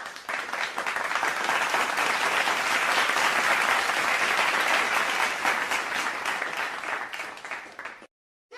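Crowd applauding, a dense patter of many hands clapping that swells over the first second or so, holds, then tapers off and cuts off abruptly about eight seconds in.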